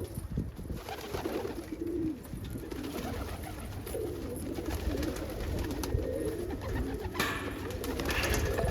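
Several homing pigeons cooing in a loft, overlapping low wavering coos throughout. A brief rustling burst comes about seven seconds in.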